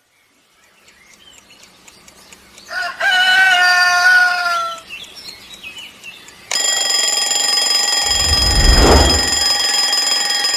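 A rooster crows once, a long call of about two seconds that falls slightly in pitch at the end, over faint scattered chirps. About two-thirds of the way in, steady held musical tones start, with a deep low swell near their middle.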